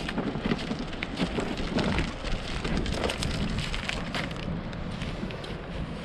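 Steady crunching and crackling of walking across shell-strewn beach sand, with wind rumbling on the microphone. The crackle eases a little near the end.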